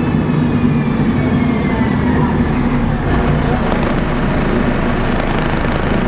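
Alexander ALX300 bus heard from inside the saloon: the engine runs steadily, and over roughly the first two seconds a high Voith automatic-gearbox whine falls in pitch as the bus slows.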